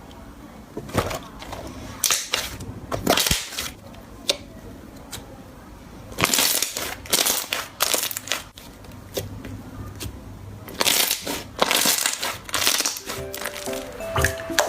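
Slime being squeezed and pressed by hand, giving repeated bursts of crackling and crunching in several clusters.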